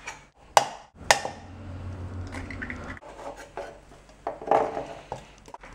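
Kitchen knife chopping a red pepper on a plastic cutting board, with sharp knocks of the blade on the board. About four seconds in, the blade scrapes the pieces off the tipped board into a bowl.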